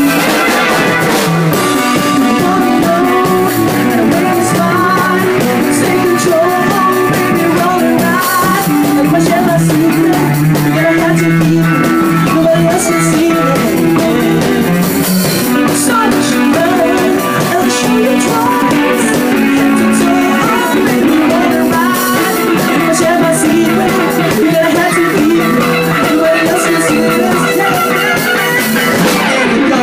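Live band playing loud rock music: electric guitar and drum kit, with a singer over them.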